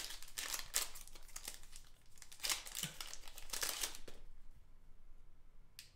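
Foil wrapper of a Panini Prizm trading-card pack being torn open and crinkled, in several bursts over the first four seconds. A single short tick near the end.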